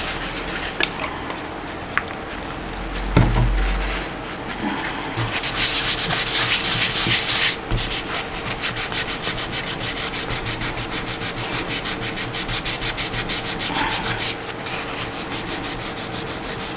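Paper towel damp with rubbing alcohol scrubbed back and forth on a graphics card heatsink, wiping off old dried thermal paste. Second half turns into rapid, even strokes, with a low knock of the card being handled about three seconds in.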